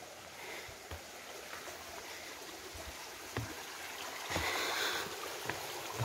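Footsteps thudding on a dry, leaf-strewn dirt trail over the steady rushing of a small creek. A louder rushing swell comes about four and a half seconds in.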